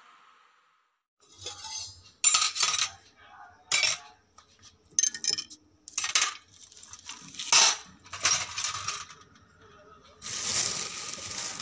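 Metal puja utensils being handled and set down, clinking and clattering against each other in a series of sharp clanks, followed near the end by a steadier rushing noise.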